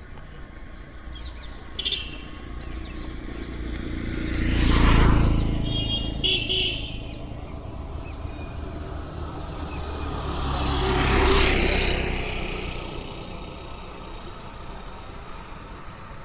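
Two road vehicles passing one after the other, each rising and fading away, with a short horn toot just after the first goes by.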